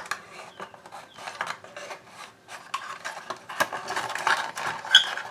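Small white cardboard box being handled and opened: flaps and inner card rubbing and scraping in a run of small clicks and rustles, with one sharper click near the end.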